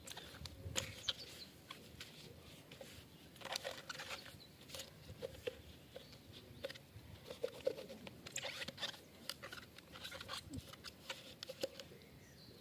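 Faint, irregular light clicks, taps and brief scrapes of plastic vacuum-cleaner parts being handled and cleaned.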